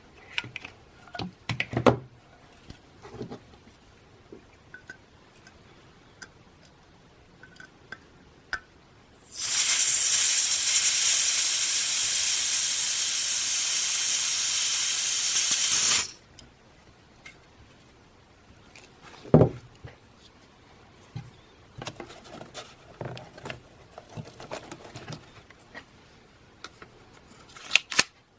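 Pressurised car air-conditioner refrigerant gas hissing steadily for about six and a half seconds as it is charged through a refill valve into an airsoft gas gun. Light clicks and knocks of handling come before and after, with one sharper knock a few seconds after the hiss stops.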